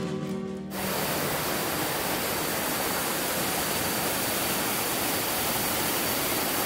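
Steady rush of a waterfall pouring over rocks, which cuts in sharply under the last of a fading acoustic guitar tune.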